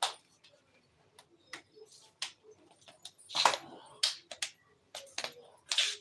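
Pet parrot making irregular sharp clicks and taps, with two louder harsh squawk-like bursts, one about three and a half seconds in and one near the end.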